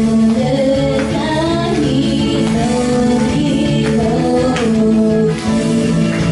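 A female vocalist singing a J-pop song live, with instrumental accompaniment and a steady drum beat.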